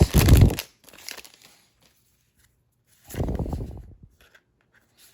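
Crinkling and tearing of a booster pack's wrapper as a trading-card pack is opened, in two short bursts: a loud one at the start with a low bump from handling, and a shorter one about three seconds in.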